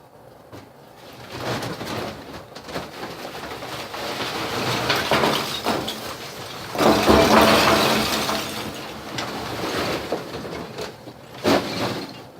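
Coal and charcoal in a coal forge being raked and stirred, an uneven crunching and scraping with many small clatters, loudest about seven seconds in.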